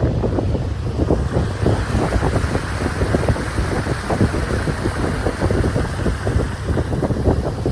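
Wind buffeting the microphone outdoors: a loud, gusty low rumble with irregular crackling thumps throughout.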